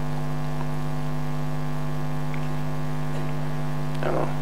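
Steady electrical mains hum picked up by the microphone and sound system: a constant low buzz made of several steady tones. A brief vocal sound comes near the end.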